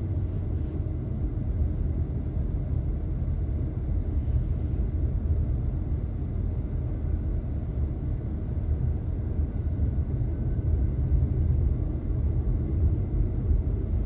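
Car cabin noise while driving on a paved road: a steady low rumble of engine and tyres.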